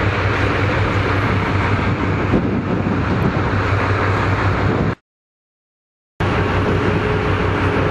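Engine of a small passenger boat idling at the pier, a steady hum. It cuts out completely for about a second after five seconds, then resumes.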